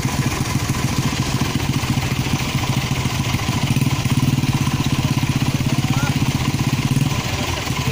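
A vehicle engine idling steadily with a fast, even chug, swelling slightly in the middle.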